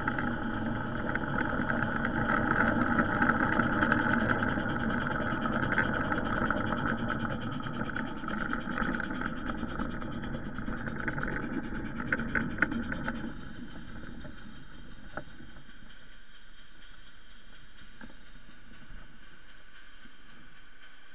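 Garden railway train running along the track, heard from a camera riding on one of its wagons: a steady whirring hum and rumble, with a quick clatter of clicks over the rail joints and points. About thirteen seconds in, the running noise drops away as the train stops, leaving only a faint hiss.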